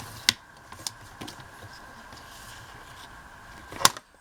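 Paper scraps being handled while being measured for cutting: light rustling with a few soft clicks, then one sharp click near the end.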